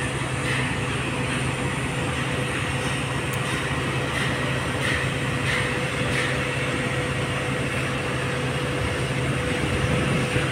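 Steady mechanical drone of machinery running, with a constant low hum and a faint steady higher tone, and a few light ticks scattered through it.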